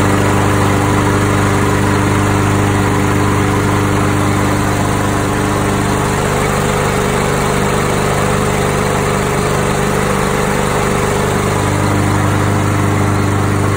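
Craftsman 7.25 lawn mower engine running at a steady, constant speed, its carburetor freshly cleaned after it would not start.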